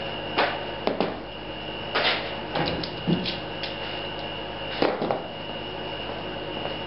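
A locking C-clamp being released and lifted off a wooden stud: a few sharp clicks and knocks in the first five seconds, the loudest about two seconds in and near five seconds, then quiet handling. A faint steady high whine runs underneath.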